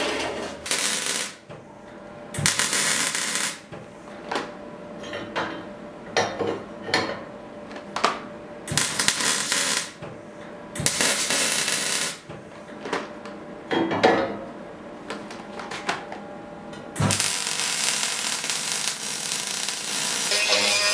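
A metal-cutting band saw runs briefly at the start. Then an electric arc welder strikes in a series of short, irregular bursts of arc crackle, as for tack welds. About 17 seconds in, it settles into one continuous weld.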